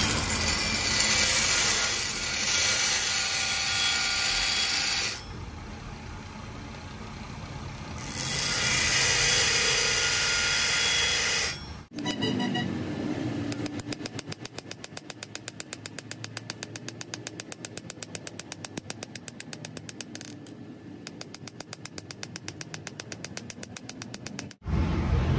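Steel plier part pressed against a belt-driven grinding wheel, grinding in two long bursts with the wheel running quieter between them. Then a hammer tapping the pivot rivet of the pliers on a steel anvil, a quick steady rhythm of about four or five blows a second, peening the rivet tight.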